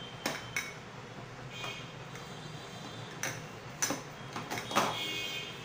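Plastic spice jars clicking and knocking against their plastic rack as they are handled and pulled out of their holders: several separate sharp clicks, the loudest about a second before the end.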